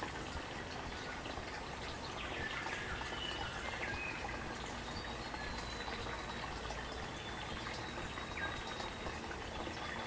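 Small forest stream babbling and gurgling steadily, with birds calling over it from about two seconds in as short chirps and thin high whistles.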